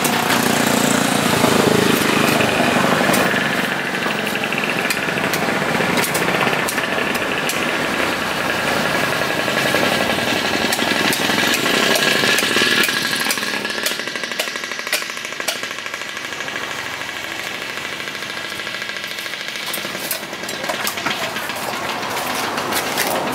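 A knife slicing and scraping through the flesh of a large trevally along its backbone on a wooden block, with scattered clicks, over a steady mechanical rattle that eases off about halfway through.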